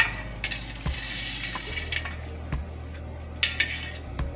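A spoon stirring strained sea moss liquid in a stainless steel bowl: the liquid sloshing, with a few light clinks of the utensil against the metal.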